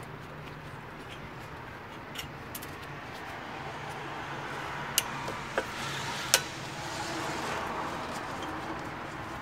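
Three sharp metallic clinks about halfway through, from hand tools working on the LPG system parts being taken apart, over a steady low hum.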